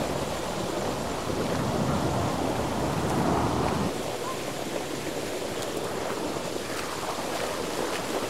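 Wind buffeting a clip-on microphone: a steady low rumble that eases about four seconds in.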